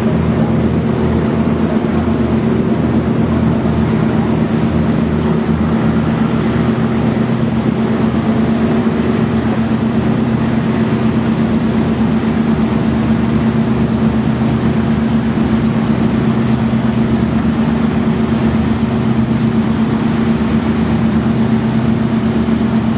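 Steady drone of a vessel's engines at cruising speed: a constant low hum with a wash of wind and water noise, unchanging in pitch and level.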